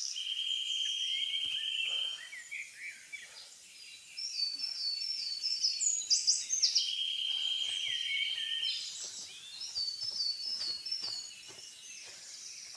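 Wild birds singing: a buzzy trill held for about two seconds, heard twice, and quick runs of four or five high chirps, over faint outdoor background noise.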